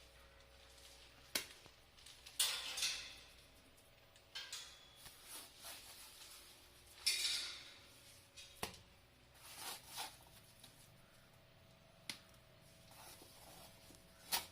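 Scattered sharp knocks and short scraping or rustling sounds of hand work, over a faint steady hum.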